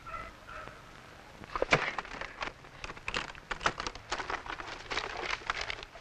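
Papers rustling and crackling as they are handled, a dense run of irregular sharp crackles starting about a second and a half in.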